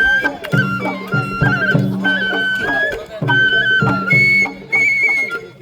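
Sawara-bayashi festival music: a shinobue bamboo flute plays a melody of held and ornamented notes over taiko drum strokes. The flute moves up to higher held notes about four seconds in.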